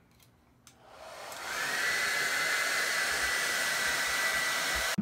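Handheld hair dryer switched on: its rushing airflow and motor whine build over about a second, then run steadily before cutting off suddenly at the end.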